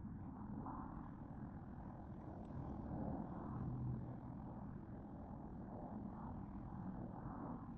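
Low, steady outdoor rumble of distant road traffic.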